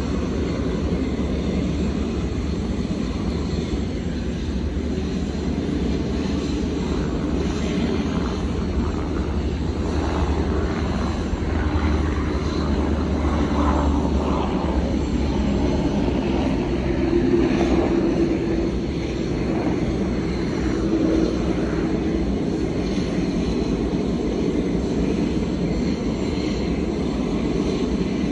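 Jet engines of a Boeing 747-400 LCF Dreamlifter running at low power: a steady, loud rumble with a faint hum through the middle.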